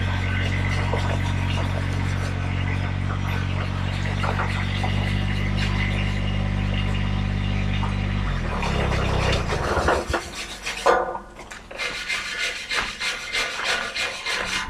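A machine's steady low hum winds down and stops a little over eight seconds in. Irregular scraping and rubbing on metal follow, with a few knocks.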